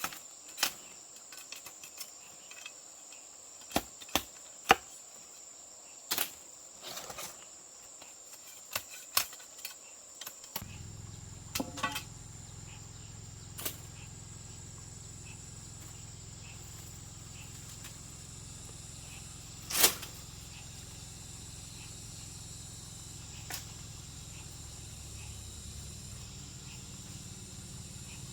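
Insects, crickets or cicadas, chirring steadily on one high note, with scattered sharp knocks through the first ten seconds and one louder knock later on. About ten seconds in a low steady hum joins and stays.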